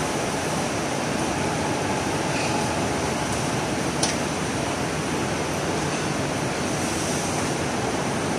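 Steady rushing background noise of a factory floor, machinery and ventilation, with one sharp click about four seconds in.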